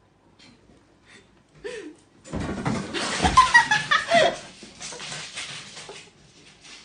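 A person laughing hard in bursts, starting about two seconds in and lasting several seconds before fading.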